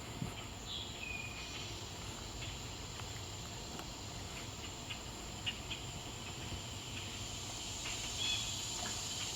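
Steady high-pitched drone of calling insects, cicadas and crickets, with a few short bird chirps about a second in and again near the end.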